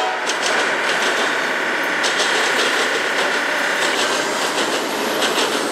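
Intermodal freight train passing, its wheels clicking and clattering over the track with a steady high squeal from about half a second in until about four seconds in. A train horn chord cuts off at the very start.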